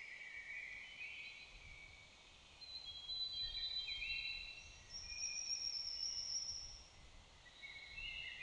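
Several songbirds singing in woodland, clear whistled phrases overlapping one another. A high, thin, held whistle sounds in the middle.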